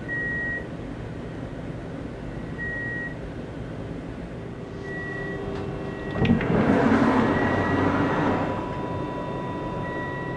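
Powered sliding toilet door on an Alstom Coradia Nordic (X62) train: about six seconds in, a click as its open button is pressed, then the door motor whooshes it open for about two seconds. Throughout, a short high beep repeats about every two and a half seconds over a steady low hum.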